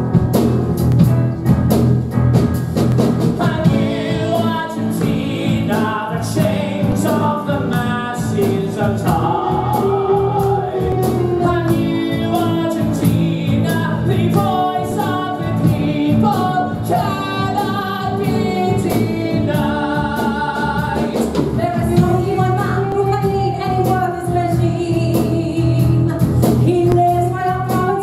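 Live stage chorus of adult and children's voices singing a musical-theatre number, with soloists leading. Steady instrumental backing with a regular beat runs under the voices.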